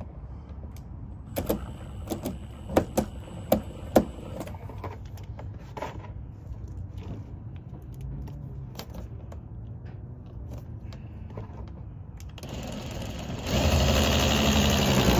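A few sharp metallic clicks and clinks of screws and mounting clips being handled, then a power drill running for about two seconds near the end, driving a screw into the plastic side skirt.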